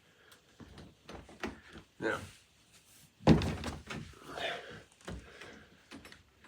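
Door-knob hardware being handled: small knocks and clicks, then one loud thunk against the door a little over three seconds in.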